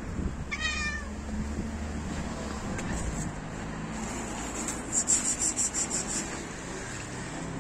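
A domestic cat gives one short meow about half a second in, over a steady low hum. From about five to six seconds a quick run of sharp, high ticks, about eight a second, is the loudest sound.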